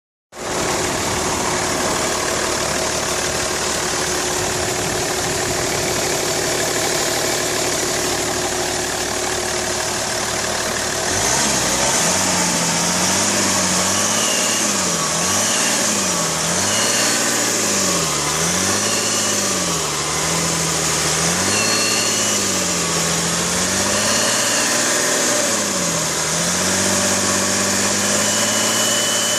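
BMW 330d straight-six turbodiesel running steadily, then from about eleven seconds in revving up and down repeatedly, roughly every two seconds. A short high whistle comes in at several of the peaks and holds steady near the end. This is the strange noise the owner hears only under load when hot, between 2000 and 3000 rpm, with no play or leak found at the turbo.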